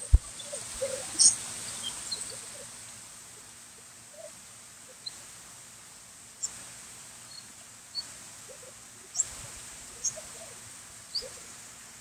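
Birds in an aviary chirping: short, high chirps every second or so, with a few brief lower calls. There is a single knock right at the start.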